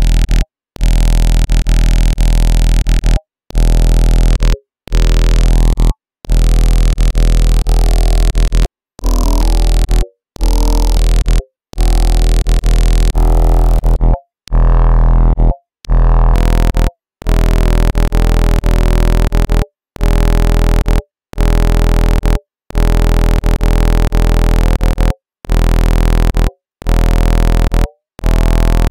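Synth bass notes repeating in a loop through a Minimal Audio Ripple Phaser, with distortion from a waveshaper after it. The phaser's notches are swept by hand, so the tone shifts and glides from note to note over a heavy sub-bass. Each note lasts about one to two seconds and is cut off by a short gap.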